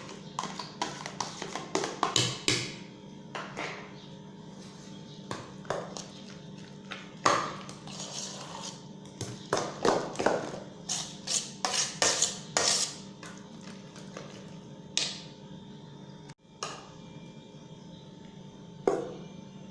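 A utensil clinking and scraping against a bowl as a cream filling is stirred, in irregular clicks and knocks.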